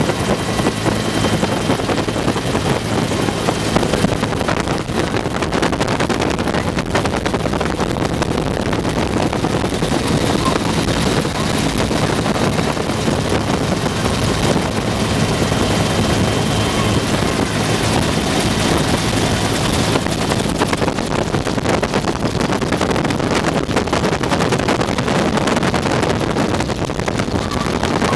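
UH-1 Huey helicopter in steady flight, heard from inside its open-doored cabin: constant engine and rotor noise mixed with wind rushing over the microphone.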